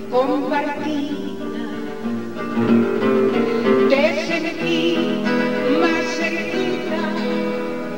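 A woman singing an Ecuadorian pasillo in long held phrases, with guitar accompaniment.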